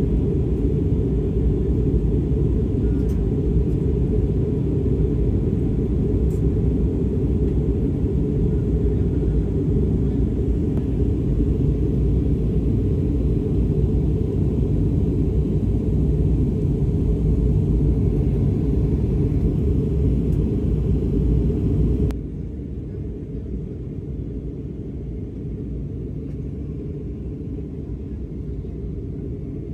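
Airliner cabin noise heard from a window seat: a steady, loud low rumble of jet engines and airflow. About 22 seconds in it cuts abruptly to a quieter, duller version of the same rumble.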